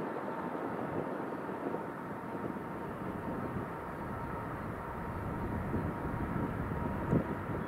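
Jet engines of an Air France Boeing 777-300ER (GE90-115B turbofans) running as the airliner moves along the runway, heard from a distance as a steady rumble with a faint steady whine; a brief knock about seven seconds in.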